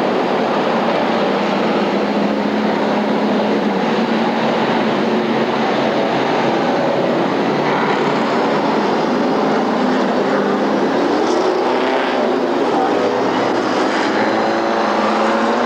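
A pack of stock cars racing on a short oval track, many engines running at once. It is a loud, steady din, with engine pitches rising and falling as cars pass.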